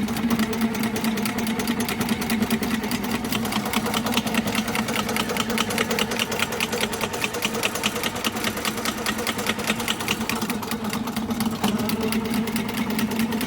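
Sewer drain-cleaning machine (motorised cable snake) running: a steady motor hum with a rapid, even clatter from the spinning cable as a 3-inch cutting blade clears roots from the sewer line.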